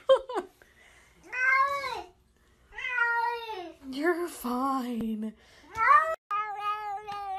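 A wet cat being towelled in a bathtub gives a string of long, drawn-out meows that rise and fall in pitch, sounding almost like words. These are complaints at being wet and handled. Near the end a long, slowly falling meow begins.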